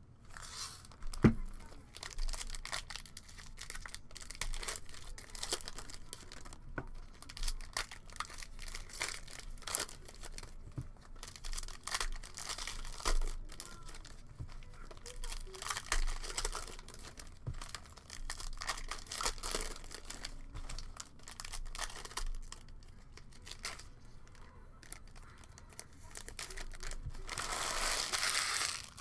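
Foil trading-card pack wrappers crinkling and tearing as sealed packs are handled and opened, with a sharp click about a second in and a longer, louder rustle of wrapper near the end.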